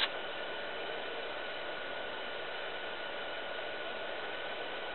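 Steady cabin noise inside a Boeing 737 on approach to landing: an even rushing hiss of engine and airflow noise, with a faint steady whine over it.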